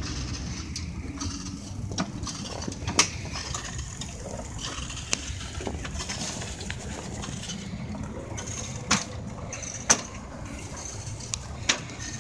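5-inch gauge miniature locomotive rolling along its track, a steady rumble of wheels on rail with sharp clicks and knocks every few seconds.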